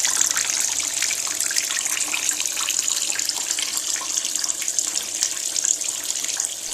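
Water running steadily out of an opened central heating drain valve into a bucket, letting off overpressure in a Vaillant ecoTEC Plus boiler's heating circuit. The owner suspects a faulty valve inside the boiler letting water pass from one circuit to the other.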